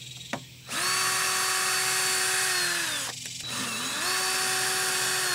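Cordless power driver with a Torx bit backing the screws out of a transom-mounted fishing-sonar transducer. The motor whines steadily, winds down about three seconds in, then spins up and runs again.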